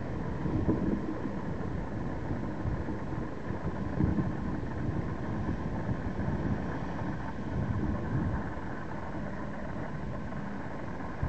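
Ocean surf washing over rocks in a continuous rush, with wind buffeting the microphone in low gusts, strongest about a second in and again around four seconds in. A faint steady hum runs underneath.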